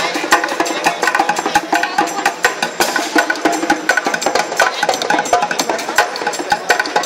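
Street bucket drumming: fast, dense strokes on upturned plastic buckets, played with quick wrist work.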